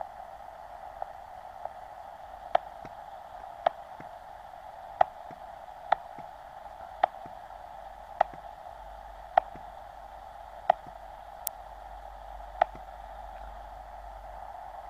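Steady receiver hiss from a small battery-powered QRP ham radio transceiver's speaker as it listens on the band, with sharp clicks about once a second.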